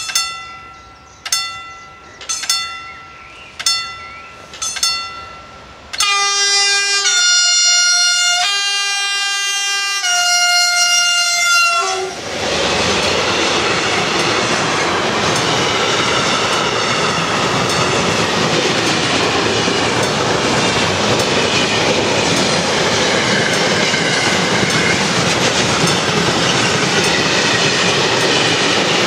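A level-crossing bell dings five times about a second apart. Then the horn of an ES 64 U2 electric locomotive sounds for about six seconds in blasts that alternate between two pitches. After that the locomotive and its intermodal freight wagons roll past loudly, with clicking wheels over rail joints.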